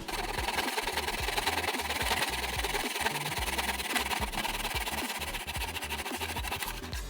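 Power saw running and cutting through wood trim for a mitred frame corner, a steady noise that starts and stops abruptly, over background music.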